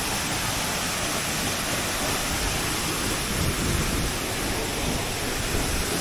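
Two tall waterfalls pouring into a shallow pool: a steady, even rush of falling water.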